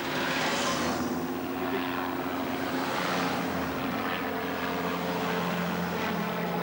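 Helicopter flying overhead: a steady drone of engine and rotor.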